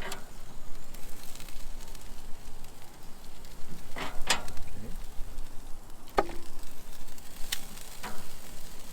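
Chicken tikka pieces sizzling on a charcoal grill, with a few sharp clinks and knocks as the pieces are lifted off, one of them ringing briefly.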